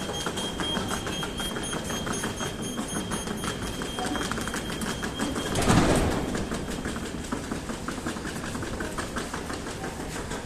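Ivolga 4.0 electric train running on the track, its wheels clicking rapidly and evenly over the rails. A steady high whine carries through the first half, and a loud rushing swell comes a little past the middle.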